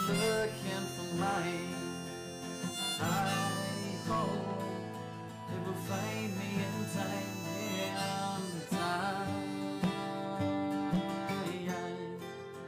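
Background music: an instrumental stretch of a song with guitar.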